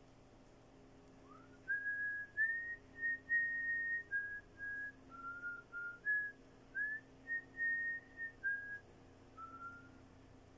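A person whistling a slow tune: a string of held notes, several sliding up into pitch, starting about a second in and stopping shortly before the end.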